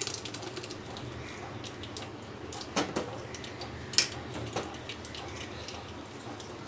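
Blended tomato purée pouring and splashing into a stainless-steel mesh strainer, faint and wet, with a few short clicks; the sharpest is about four seconds in.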